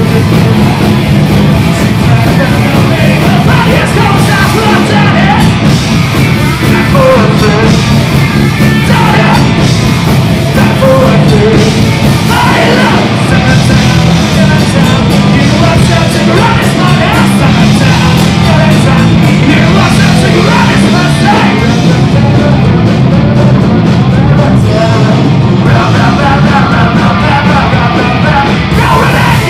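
Live rock band playing loud, with electric guitars, bass and a drum kit, and a singer singing into a microphone.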